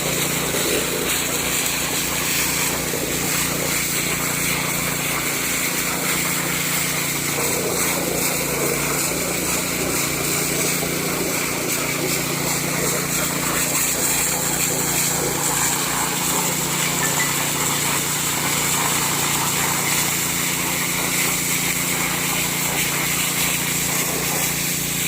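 Small petrol-engine water pump (an alkon) running steadily at constant speed.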